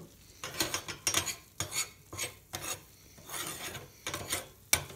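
Metal spoon stirring and scraping a thick butter-and-flour roux around a small nonstick skillet, about two scrapes a second, with one sharp clink of spoon on pan near the end.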